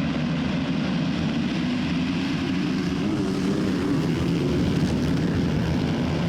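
Motocross bikes racing, their engines running together in a steady, dense drone.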